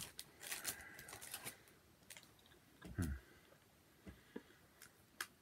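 Faint handling noises: scattered light clicks and rustles as a doughnut is picked up and pulled apart by hand, with one dull thump about three seconds in.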